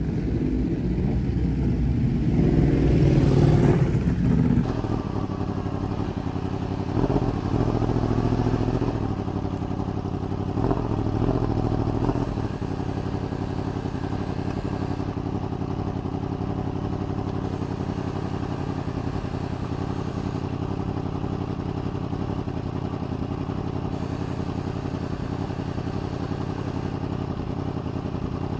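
Yamaha R1's crossplane inline-four engine running, swelling louder three times in the first dozen seconds, then settling into a steady idle.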